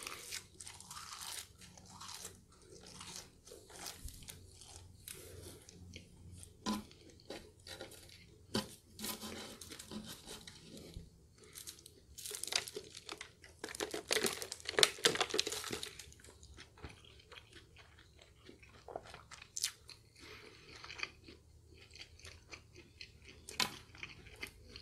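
A person eating McDonald's French fries, with irregular soft crunches and mouth clicks of chewing, loudest about halfway through.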